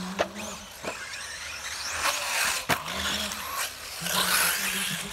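Electric off-road RC buggies running on a dirt track, with high-pitched motor whines rising and falling and tyre noise. A few sharp knocks are heard, the strongest one a little past halfway.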